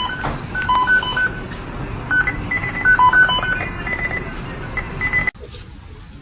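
A simple tune of short, high beeping notes over background noise, which cuts off abruptly about five seconds in.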